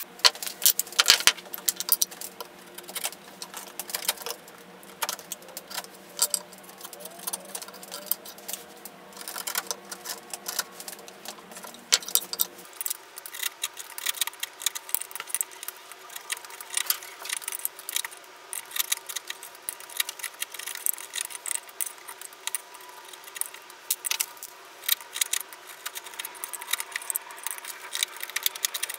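Bench chisel paring walnut in a small notch: irregular short scraping and clicking strokes as chips are cut away. A steady low hum sits underneath.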